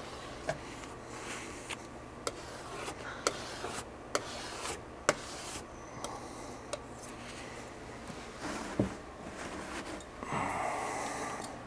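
Light clicks and scrapes as oil paint is cleaned off a painting palette, with a longer, louder scrape about ten seconds in.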